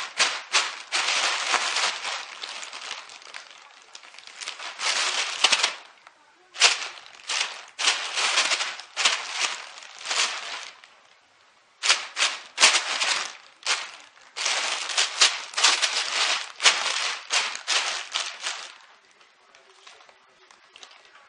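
A thin plastic bag crinkling and rustling in loud bursts as a cat thrashes and rolls about inside it. There are a couple of brief lulls, and it dies down near the end.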